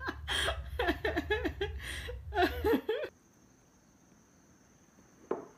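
A person laughing in quick, rhythmic bursts, which stops abruptly about three seconds in. A quiet room follows, with a faint steady high-pitched tone and one short sound near the end.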